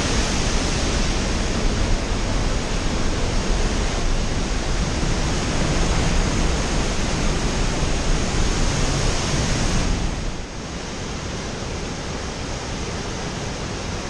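Steady, loud rush of a large waterfall's crashing white water heard up close. About ten seconds in it drops to a quieter, more distant rush.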